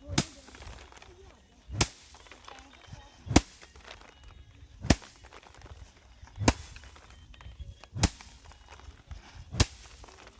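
Seven sharp strikes, evenly spaced about one every second and a half, like a steady, repeated work stroke.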